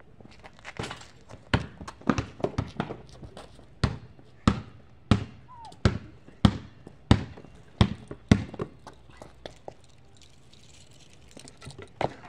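Basketball dribbled on a concrete driveway: a run of evenly spaced bounces, a little under two a second, through the middle, with scattered irregular knocks before them and a quieter stretch near the end.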